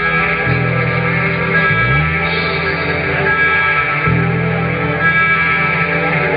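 A live rock band playing: electric guitar chords ringing over a bass line that slides up to a new note about two seconds in.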